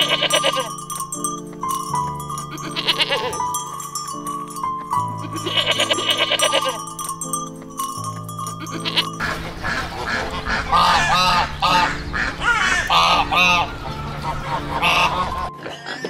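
Goats bleating, with a fluttering quaver in the calls, several times over the first few seconds, then a quicker run of shorter bleats from about nine seconds in. Background music plays throughout.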